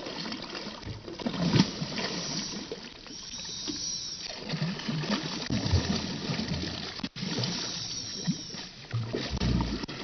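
Hooked grouper thrashing at the water's surface beside the boat, throwing up irregular splashes as it fights the line.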